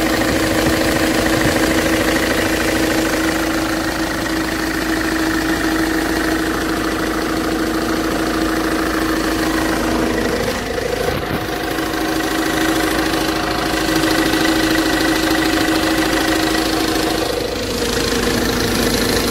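Ford Transit engine idling with an unexplained knock, which the owner thinks comes from the middle of the engine after ruling out the injectors. A steady whine runs over it and breaks off briefly about ten seconds in and again near the end.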